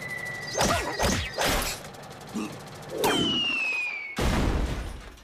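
Cartoon sound effects: a high motor whine dies away, then a few sharp swishes and knocks, a falling whistle that drops in pitch for about a second, and a loud crash near the end.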